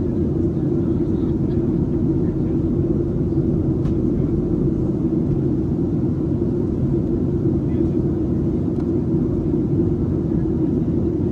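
Steady in-cabin drone of a Boeing 737-700 on approach: its CFM56-7B jet engines and the airflow over the fuselage, a constant low hum with no change.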